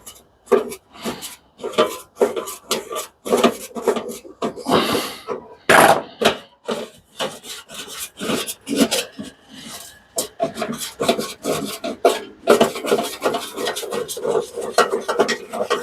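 Metal being scraped or filed by hand in quick, irregular rasping strokes, which come faster and denser near the end.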